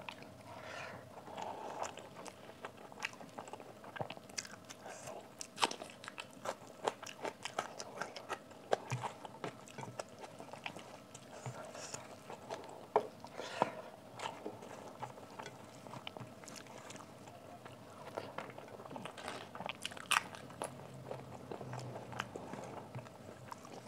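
A person chewing and biting mouthfuls of rice and matar paneer curry, eaten by hand, close to the microphone: irregular wet mouth clicks and chewing sounds with occasional sharper crunches.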